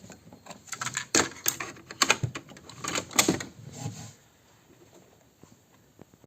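A clatter of sharp knocks and rattles in quick, irregular clusters for about four seconds, then only a few faint ticks.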